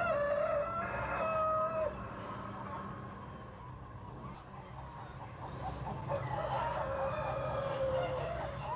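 Rooster crowing twice: one call lasting about two seconds at the start, and a second starting about six seconds in that wavers and trails downward near the end, over a steady low hum.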